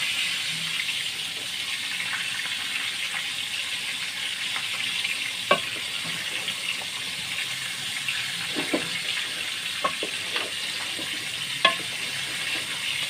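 Chicken and potato karahi sizzling steadily in a metal pot while it is stirred with a wooden spoon, with a few sharp knocks of the spoon against the pot.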